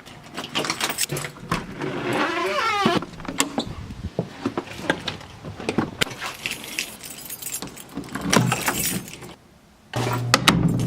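Car sounds: many sharp clicks and rattles, with a falling glide about two to three seconds in, broken by sudden cuts.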